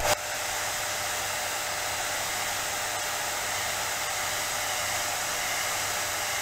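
Hot-air blower switched on at the start and running steadily, a rush of air with a faint steady whine, heating the adhesive that holds an iPad Air's cracked digitizer glass.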